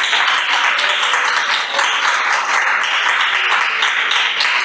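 Congregation applauding and clapping: a steady, dense patter of many hands.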